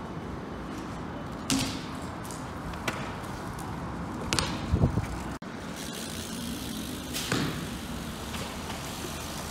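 BMX bike knocking and landing on concrete: a few separate sharp knocks and thuds, the loudest pair about halfway through, over a steady low hiss.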